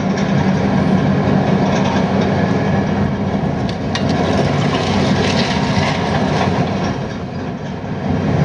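Heavy demolition machinery at work: a diesel engine running under load with continuous clattering of debris.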